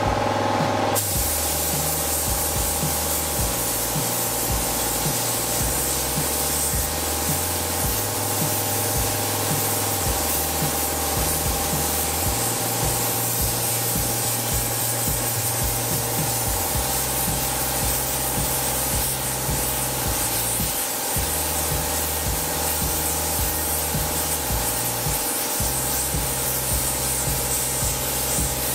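Compressed-air gravity-feed spray gun hissing steadily as it sprays paint onto an engine block, cutting in about a second in.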